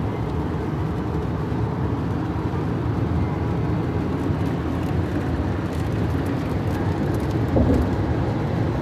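Steady low rumble of a moving vehicle, its road and engine noise running evenly throughout.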